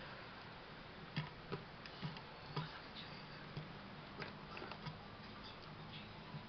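A cat pawing and tugging at clothes on a shelf: faint, irregular clicks and light taps, starting about a second in, over a low steady hum.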